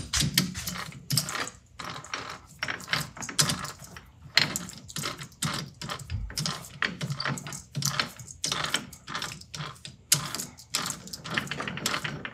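Irregular clicking and light metallic clatter from tools and parts being handled at a metal lathe, many small clicks in quick succession.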